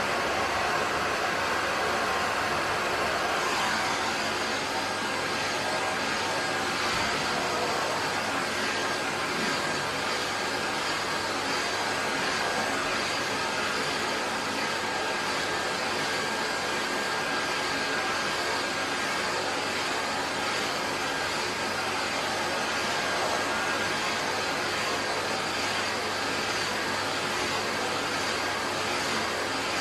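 Miele S511 Cat&Dog vacuum cleaner running steadily, a rush of air with a steady high whine over it, as its hose nozzle is worked through a Shetland sheepdog's long coat.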